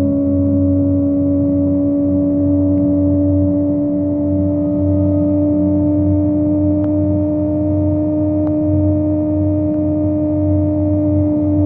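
Kawasaki ZX25R's 250 cc inline-four with a Yoshimura exhaust, cruising at steady high revs: a steady high-pitched hum whose pitch barely changes, easing down slightly near the end.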